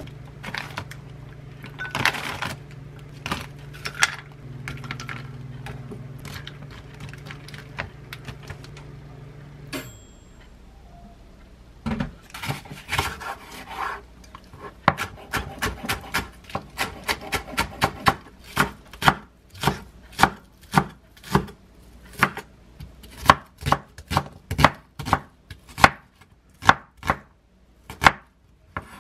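A kitchen knife chopping on a wooden cutting board, slicing a large green onion and then an onion in a steady rhythm of about two strokes a second, which starts about twelve seconds in. Before that come scattered knocks and rustles as plastic-packed groceries are handled.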